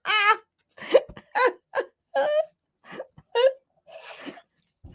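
A woman's voice making short, broken utterances and vocal sounds under her breath, too indistinct to make out as words. About four seconds in comes a brief scratchy rasp of a sanding block rubbed along the burnt paper edge.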